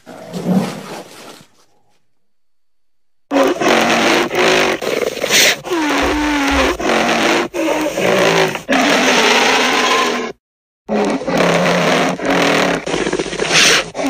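Sound-effect calls made for an extinct woolly rhinoceros: a short call at the start, then after a pause a long run of rough, low calls whose pitch slides down and levels off, broken once by a brief gap about ten seconds in.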